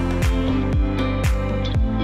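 Background music with a steady beat, about two beats a second, over sustained pitched notes.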